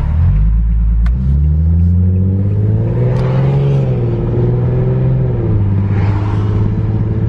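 Infiniti G37S's 3.7-litre V6 engine accelerating hard, its pitch rising over the first few seconds and then holding steady.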